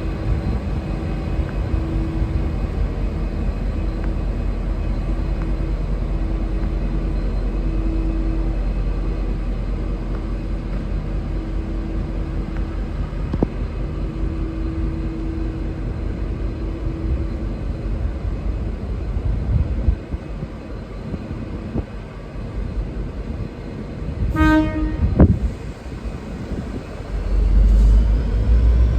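V/Line N class diesel locomotive running with a steady low rumble. About 24 seconds in it gives one short blast on its Leslie RS5T horn. Near the end the rumble rises as the engine loads up to pull away.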